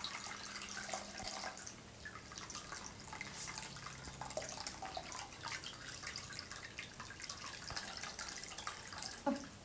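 Fermented makgeolli dripping and splashing into a metal bowl as the mash is squeezed through a mesh straining bag, a dense irregular patter of small drips. This is the straining stage of making makgeolli.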